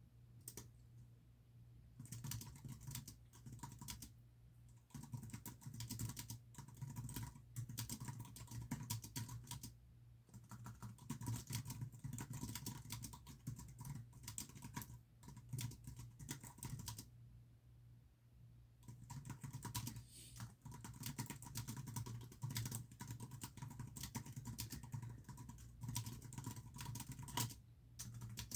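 Typing on a computer keyboard: bursts of rapid keystrokes broken by pauses of a second or two.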